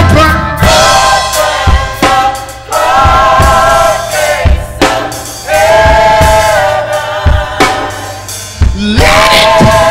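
Live gospel music: voices holding long sung notes in phrases of a second or so over a drum kit and bass, with drum hits in the gaps between phrases.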